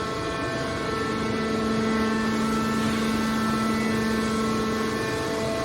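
Scrap car baler's hydraulic power unit running steadily: a constant machine hum with a stack of steady tones above it, the lowest tone dropping away briefly near the end.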